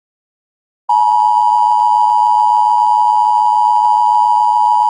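Emergency Alert System attention signal: a loud, steady electronic dual tone of two close pitches sounding together, starting about a second in and holding unchanged.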